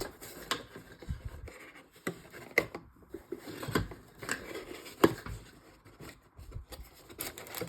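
Trading cards and card packs being handled: soft rustling and sliding with scattered light clicks and taps.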